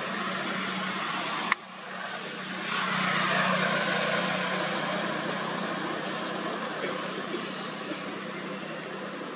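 Steady rushing outdoor noise with a low hum under it. A sharp click comes about a second and a half in and the noise drops off, then it swells about three seconds in and slowly fades.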